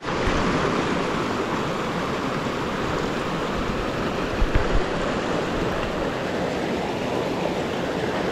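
Shallow mountain river rushing steadily over boulders in small rapids. A few brief low thumps sound about halfway through.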